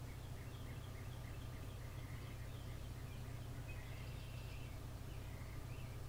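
A bird singing: a quick run of short chirps, a held whistle about four seconds in, then a few slurred notes, over a steady low hum.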